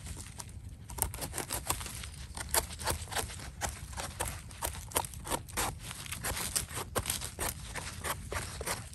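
Small knife scraping and cutting at the stem of a freshly picked bolete mushroom: a steady run of many short, irregular scratches and clicks.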